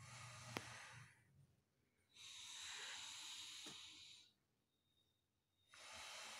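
Alternate-nostril breathing (anulom vilom pranayama): three faint, slow, hissing breaths through one nostril while the other is pressed shut, with short pauses between them. The middle breath is the longest.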